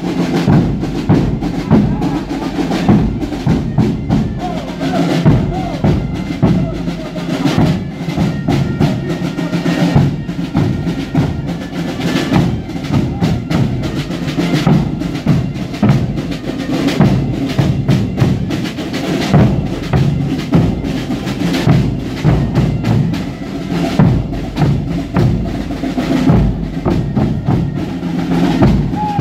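Portuguese bombos drum group of large bass drums and snare drums playing together in a steady marching beat.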